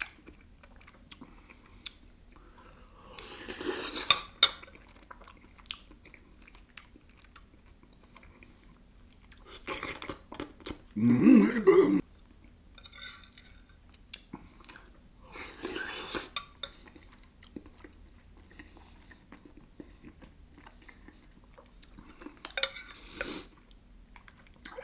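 A person eating a hot chicken-and-dumplings stew with a spoon: chewing, with small clicks of the spoon against the dish. A handful of louder, rushing sounds about a second long come at intervals, the loudest about halfway through.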